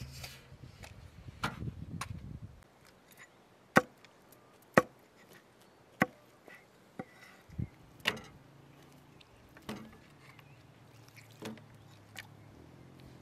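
Hatchet chopping raw whole chickens apart on a thick round wooden chopping block: sharp single blows into the wood, irregular and roughly a second apart.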